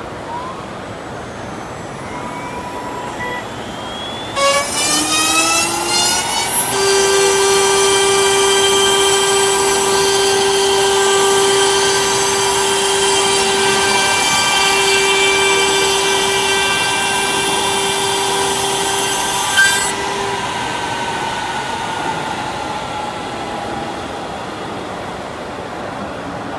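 A machine's electric motor spinning up with a rising whine, running steadily at speed with a high whine, then winding down about twenty seconds in.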